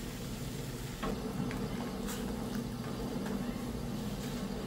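Water boiling in an aluminium pot on a gas stove, stirred with a red plastic ladle that gives a few light clicks against the pot. The bubbling and stirring get louder about a second in.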